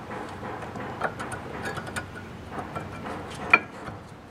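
Rear disc brake pad being slid by hand into the caliper bracket's spring clips: light metallic clicks and scraping, with one sharp click about three and a half seconds in.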